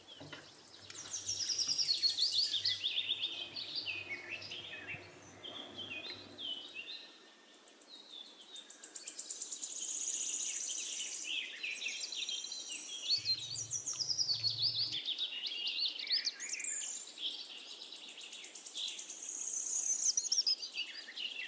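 Birdsong: many birds chirping, with quick high chirps and fast trills overlapping.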